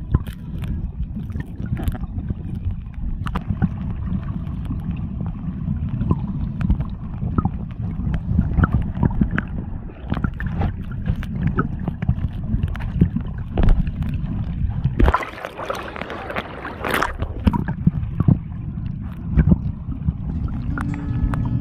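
Underwater camera audio while snorkeling: a steady muffled water rumble with bubbling and clicking crackles, and a brief brighter burst of splashing about fifteen seconds in. Background music comes in near the end.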